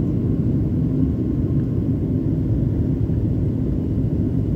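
Cabin noise inside a Boeing 737-900 on descent for landing: a steady low rumble of the engines and airflow, heard from a window seat over the wing.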